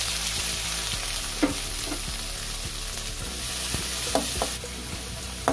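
Chopped onions sizzling in hot oil in a metal pan as they are stirred, the metal spoon scraping and clinking against the pan a few times.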